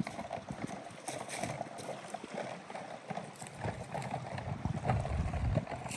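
A small boat being paddled along a shallow creek: the paddle knocks irregularly against the hull and dips and splashes in the water, with a low rumble swelling briefly near the end.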